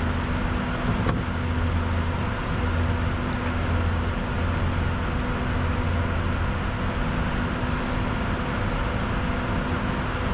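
Steady flight-deck noise of a Bombardier Challenger 605 in descent: rushing airflow with a constant low hum underneath.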